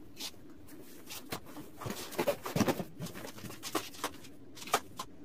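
Hands working a massage chair's fabric straps and leather-covered backrest: rustling, with scattered light clicks and knocks, busiest in the middle and with a sharp tick near the end.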